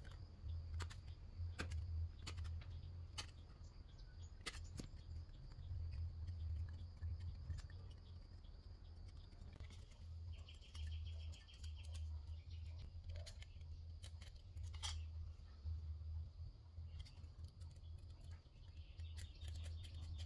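Scissors snipping through thin brass sheet: scattered sharp clicks of the blades, with a short rasp of the cut twice, over a faint low rumble.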